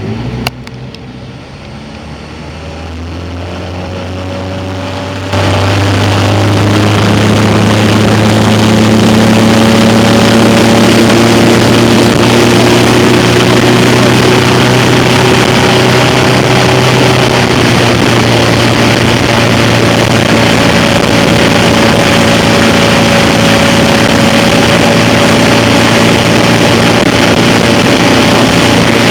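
Jet ski engine running, its pitch creeping up over the first several seconds and then holding steady. About five seconds in, a loud rushing noise suddenly joins it and stays over the engine.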